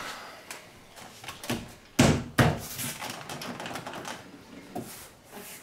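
BMW E46 door trim panel being pressed onto the door by hand, its plastic retaining clips snapping into place: a few sharp clicks and knocks, the loudest two about two seconds in and half a second apart, with lighter tapping between.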